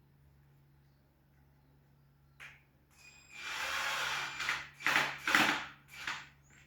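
Handling noise from wiring work: after a quiet start, a single click, then a second or so of rubbing and rustling, and a few short scrapes near the end as wires are worked into the terminals.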